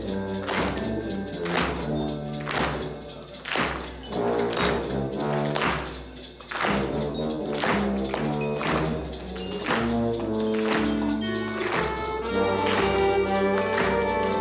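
Middle school band playing a jazz-style piece: drum-kit hits land about once a second over a low bass line, with saxophones and brass holding notes that grow fuller over the last few seconds.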